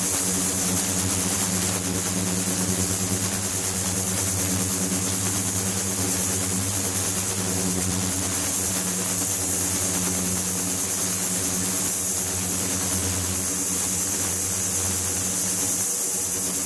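Water-filled ultrasonic tank running with its transducers driven: a steady low buzz under a high hiss, with a thin high whine above it.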